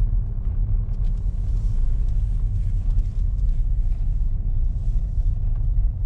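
Steady low rumble of a car running, heard from inside the cabin.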